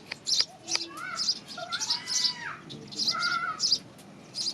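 House sparrows chirping: a quick run of short, high chirps, two or three a second, with a few lower swooping calls in the middle.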